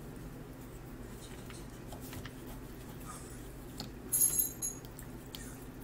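Paintbrush being rinsed in a cup of water: quiet handling noise with faint clicks, and a short bright clink about four seconds in, typical of the brush knocking against the cup.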